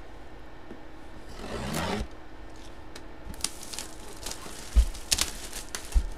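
Cardboard jersey box being handled and opened: scraping and rubbing as the lid is worked loose, scattered clicks, and two sharp knocks about five and six seconds in.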